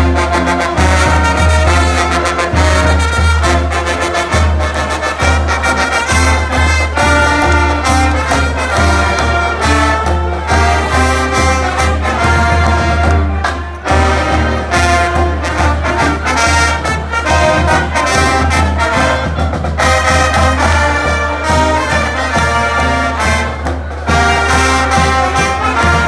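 Brass band playing a loud, up-tempo tune, trumpets and trombones to the fore, with a brief break about fourteen seconds in.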